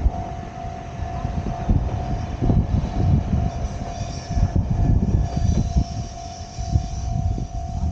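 Diesel railcar of the Akita Nairiku Jukan Railway running, a low uneven rumble with a steady hum.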